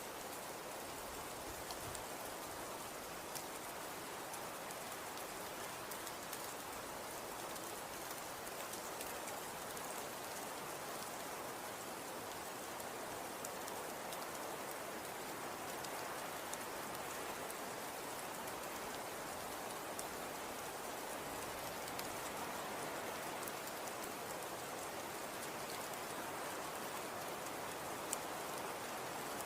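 Steady wind and blowing snow: an even hiss with faint scattered ticks, one slightly louder near the end.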